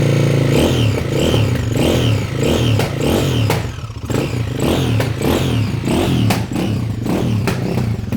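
2008 KTM EXC-F 530's single-cylinder four-stroke engine revved in quick repeated throttle blips, about two a second, with a clattery mechanical note that the owner asks may be a bad sound.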